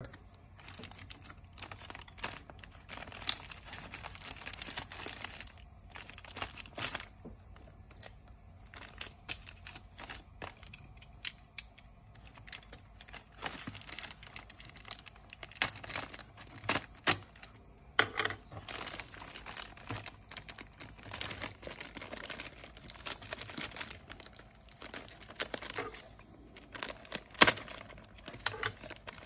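Plastic bag and paper mailer crinkling and rustling as they are handled and unpacked, with scattered sharp clicks and taps, a few of them louder.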